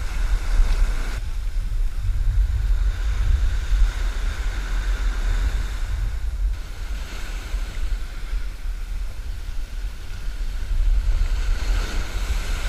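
Wind buffeting the microphone: a steady low rumble under a constant hiss, with a faint even whine.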